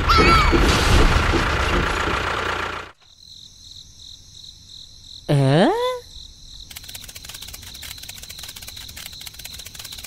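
A small toy motor runs loudly and cuts off about three seconds in. A cricket-chirping ambience follows, with a brief cartoon sound effect about five seconds in that swoops down in pitch and back up.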